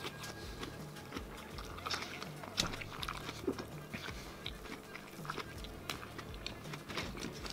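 Close-miked chewing and biting into a large grilled chicken sandwich, with many short wet mouth clicks, over quiet background music.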